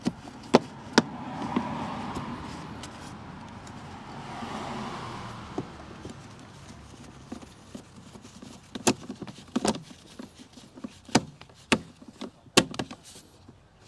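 A socket wrench on an extension tightening the screws of the plastic cabin-filter housing trim: scattered sharp clicks and knocks of tool and metal against plastic. A soft rushing noise swells and fades during the first half.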